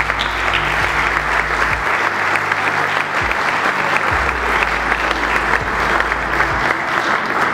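Audience applauding steadily, many hands clapping at once, with music playing low underneath.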